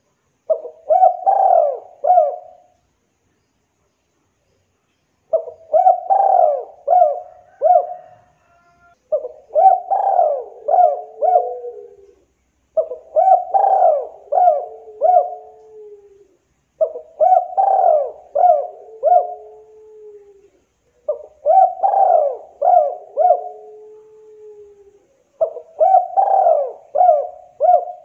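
Spotted dove cooing in seven phrases about four seconds apart. Each phrase is a run of three or four quick coos, and several end in a longer, lower drawn-out note.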